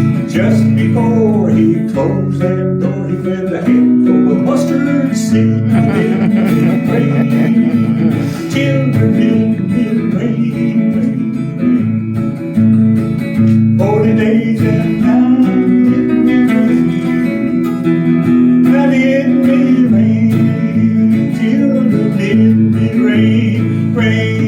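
Instrumental break in a blues-gospel song: a band led by guitar plays on between sung verses.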